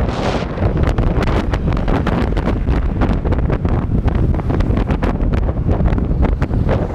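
Wind buffeting the microphone of a camera on a motorcycle riding at road speed: a steady low rumbling rush with rapid crackling gusts.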